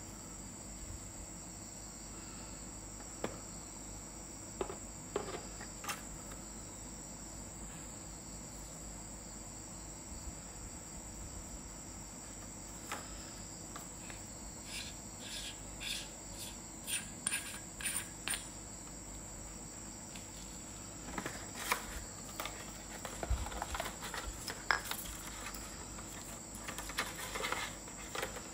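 A cricket trilling steadily in the background, with scattered clicks and knocks from a metal flashlight and its box being handled, coming more often in the second half.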